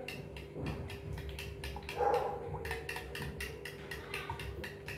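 Spoon clinking against a glass bowl in quick, irregular taps as plain yogurt is beaten smooth. A short, louder sound comes about two seconds in.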